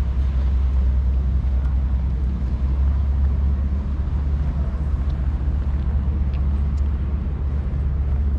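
Wind buffeting a GoPro's microphone while walking, a steady low rumble.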